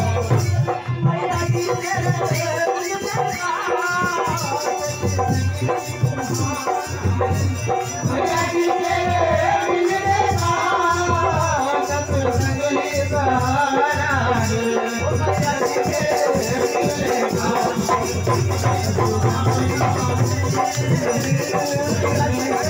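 Live Hindi devotional bhajan sung into a microphone and amplified, with a steady drum beat and rattling percussion keeping time underneath.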